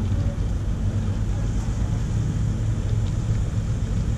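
A steady low engine drone: a constant deep hum over a rumble, unchanging throughout.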